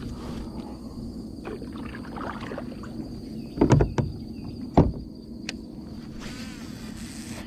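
Two loud knocks on a plastic fishing kayak's hull about a second apart. Then, near the end, a baitcasting reel's spool whirs for about a second as the line pays out on a cast. A steady high insect drone runs underneath.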